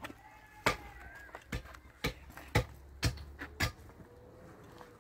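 A run of about seven sharp knocks, irregularly spaced over about three seconds, over a faint low hum.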